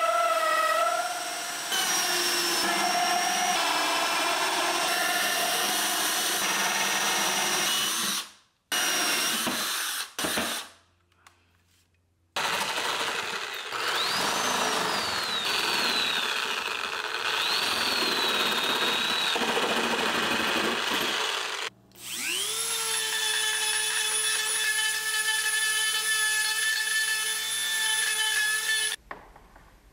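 Ryobi power drill cutting into medium-density fibreboard, in several runs broken off by sudden cuts, the motor pitch rising and falling as it bites. In the last run the motor whines up to speed and then runs steady.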